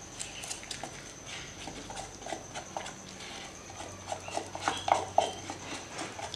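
Putty spatula scraping and tapping in a small can of polyester putty as putty is scooped out: light, irregular clicks and scrapes, busier about four to five seconds in.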